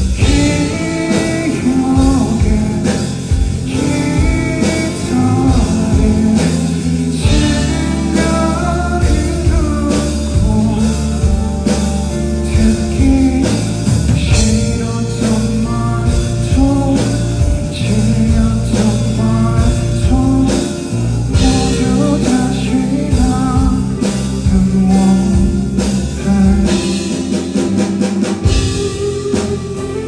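Live band performance: a man singing to his own hollow-body electric guitar, with a drum kit behind.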